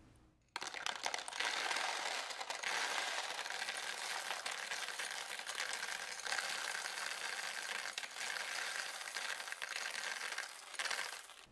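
M&M's chocolate candies poured in a steady stream into a hard plastic toy pool: a dense, continuous rattling patter of many small hard candies hitting plastic and each other. It starts about half a second in and stops near the end.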